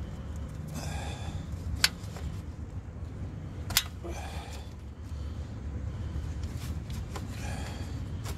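Oil filter wrench on a car's spin-on oil filter as it is fitted and turned to break the filter loose, the filter not very tight: two sharp clicks about two seconds apart, with softer rustles between, over a steady low rumble.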